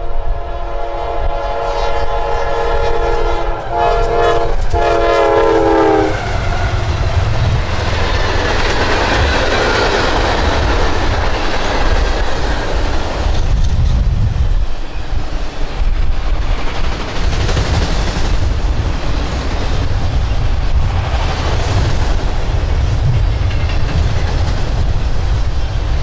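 Freight locomotive's air horn sounding a steady chord as it approaches the grade crossing, with two short breaks before it stops about six seconds in. A train of autorack cars then rolls steadily past close by, a loud continuous rumble of wheels on rail.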